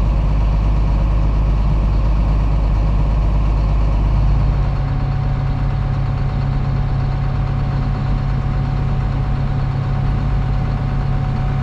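Heavy diesel farm machinery engine running steadily, heard from close by. About four and a half seconds in, its low drone shifts to a higher, steadier note, as with a change in engine speed or load.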